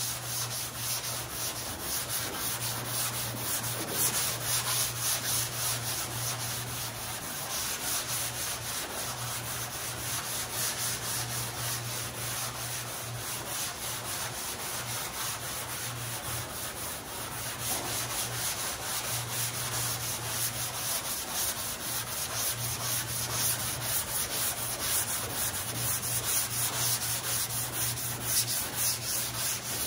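Hand block-sanding of a primed truck body panel: a sanding block with sandpaper pushed in quick, steady back-and-forth strokes over the primer, a continuous scratchy rasping.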